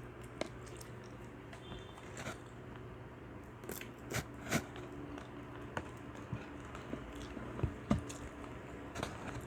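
Close-up eating sounds: irregular crunchy bites and chewing of fried fast food, in scattered sharp clicks.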